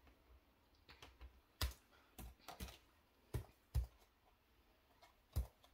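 Pokémon trading cards being handled and flipped through: about half a dozen light, sharp clicks and taps at irregular intervals.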